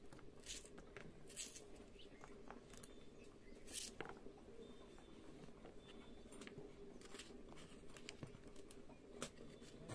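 Faint, irregular clicks and light taps of a small kitchen knife cutting onion pieces held over a plastic plate, about one every second, the sharpest about four seconds in.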